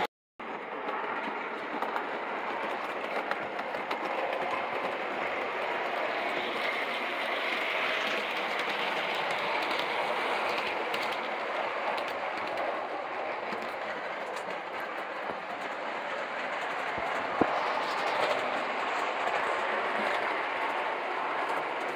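Vintage O gauge model train, a Mi-Loco Hudson pulling passenger cars, running steadily on three-rail track: a continuous rumble of metal wheels and motor with clickety-clack over the rail joints. A single sharp click sounds late on.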